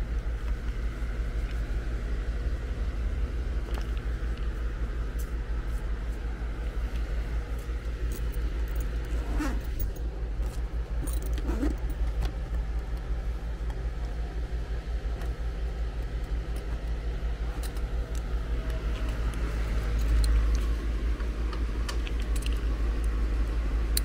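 1.5-ton Lennox heat pump outdoor unit running in cooling mode, a steady low hum from its compressor and condenser fan. Now and then metal clinks and rattles of brass refrigerant fittings and hand tools being handled close by.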